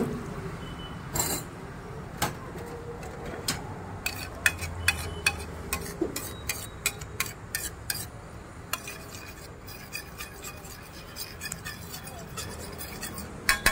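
Metal spatula clinking and scraping on a large flat metal griddle (tawa) as an egg gravy is stirred and spread. The clinks are sharp and irregular, and come thickest in the middle stretch.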